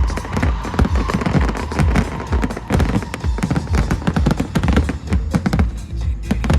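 Fireworks going off in a rapid, dense barrage, deep booms and sharp cracks overlapping several times a second.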